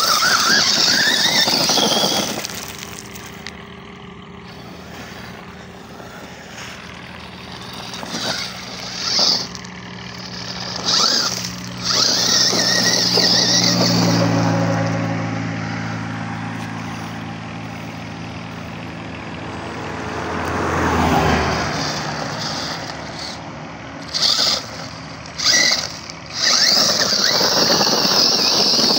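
Brushless-motor RC monster truck driving in full-throttle bursts on loose gravel: a short rising electric whine with the tyres spraying stones, several times, between quieter stretches. Underneath, through the middle, a lower engine drone builds, then swells and fades about three quarters of the way through.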